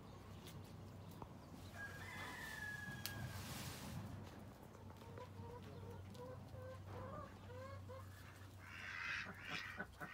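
Fowl clucking: a thin drawn-out call about two seconds in, then a string of short soft clucks, with a brief loud rustle near the end.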